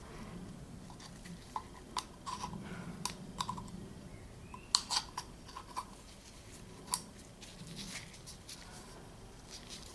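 Light, irregular clicks and taps of a thin screwdriver against the oil filter housing cap as the new gasket is worked into its groove to seat it properly, with small handling noises in between.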